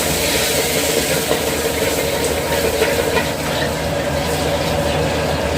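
Steady mechanical roar of a restaurant kitchen while jjamppong is cooked: a gas wok burner and exhaust fan running, with a few light clinks.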